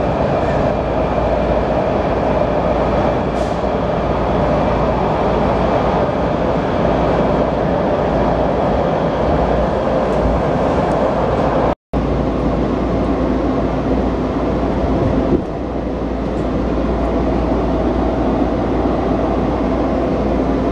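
Washington Metrorail subway car running through a tunnel, heard from inside the car: a steady rumble of wheels on rail. The sound cuts out for an instant about twelve seconds in, eases slightly a few seconds later, and the train is pulling into a station near the end.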